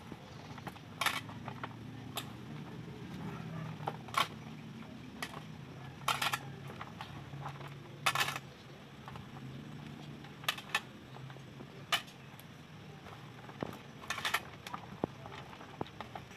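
Hands tossing shredded carrot, bitter gourd and onion in a stainless steel tray: irregular soft rustles and squishes of the wet vegetables with scattered sharp clicks, over a low steady hum.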